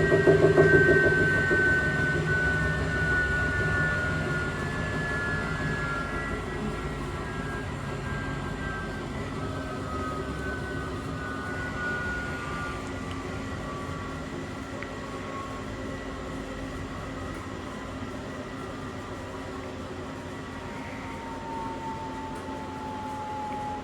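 Coin-laundry washing machine winding down at the end of its spin cycle: the motor whine falls slowly in pitch as the drum slows and the noise fades.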